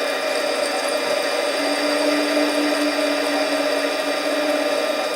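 Harbor Freight 7x10 mini lathe running, its carriage on power feed taking a light finishing cut on an aluminum tube. The sound is a steady whine, with a lower tone joining about one and a half seconds in.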